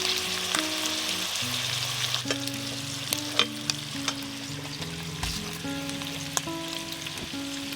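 Food frying in hot oil, a steady sizzle with scattered sharp crackling pops.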